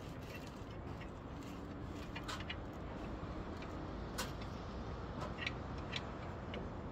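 A handful of short, sharp knocks and clicks from hand work on the roof timbers, over a steady low rumble.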